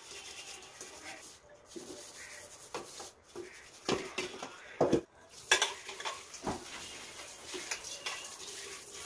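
Aluminium cooking pots being washed by hand at a tap: rubbing and scraping, with several sharp clanks of metal as the pots are handled and set down, the loudest in the middle.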